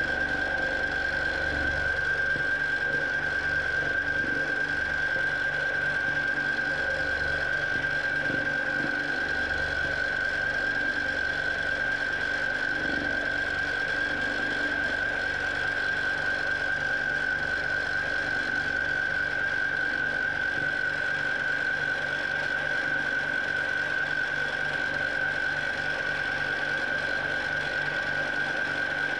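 Q'nique 19 longarm quilting machine running as it stitches free-motion swirls, with a steady high-pitched whine over a faint low flutter.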